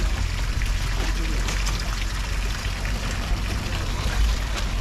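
Seawater splashing and pouring in a continuous stream, with small drips and spatters over a steady low rumble.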